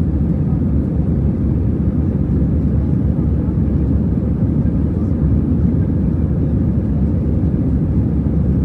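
Steady low roar of an airliner cabin during the climb after takeoff: jet engine and airflow noise heard from a window seat.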